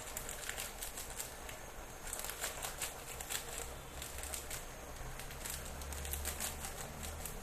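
Irregular crackling and crinkling from a plastic seasoning sachet being shaken out over a pot of soup that is boiling and bubbling. A low rumble comes in near the end.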